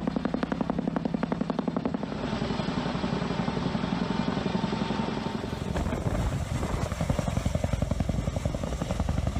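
CH-47 Chinook tandem-rotor helicopter lifting a slung load, its twin three-blade rotors beating in a rapid, steady chop of about ten blade beats a second over its turbine rumble. About five and a half seconds in, the beat turns deeper.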